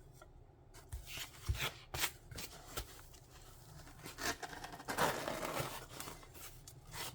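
Small stained glass sheets being handled: a scatter of light taps and clicks as they are picked up and set down, with a short rustle or scrape of packaging about five seconds in.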